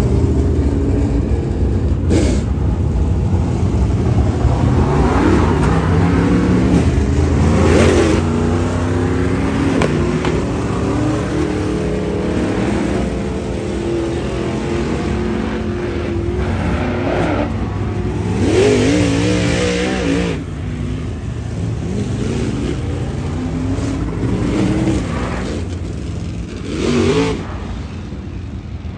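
Dirt late model race cars' V8 engines running laps on a dirt oval, revving up and down as they pass, with louder passes about eight seconds in, around eighteen seconds, and near the end.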